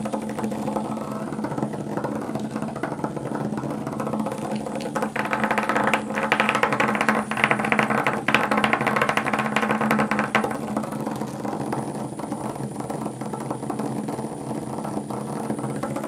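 HEXBUG nano robots buzzing as they run: their small vibration motors hum steadily while they rattle against the plastic track walls. The sound is louder and harsher for a few seconds in the middle.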